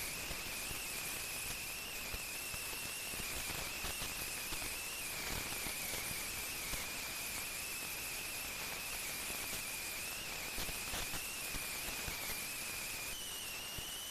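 Heavy earthmoving machinery at work: a steady high-pitched whine that wavers slightly in pitch and steps up a little near the end, over a constant crackling hiss.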